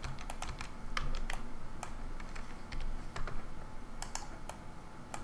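Irregular clicks of a computer keyboard and mouse as software shortcuts and selections are made.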